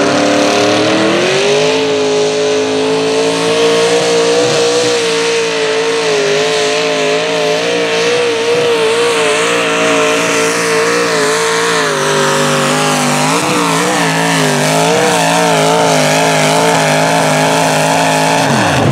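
Small-block engine of a mini modified pulling tractor at full throttle through a pull. It revs up over the first couple of seconds and holds high revs with a wavering pitch, which shifts around two-thirds of the way through. Near the end it falls away sharply as the throttle comes off.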